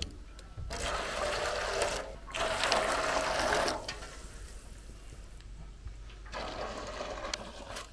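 Hot acorn-skin brew ladled from a pot and poured into a metal basin, splashing in three pours of a second or so each; the second pour is the loudest.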